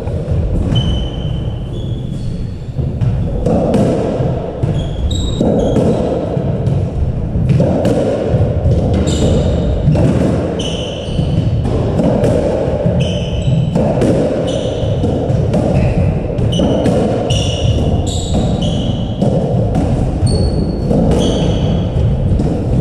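A squash rally: the ball cracks off rackets and thuds off the walls again and again, with sharp shoe squeaks on the wooden court floor between shots. The hits ring in the enclosed court.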